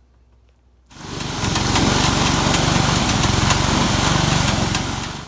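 A small engine running steadily at high speed. It comes in about a second in and cuts off sharply near the end.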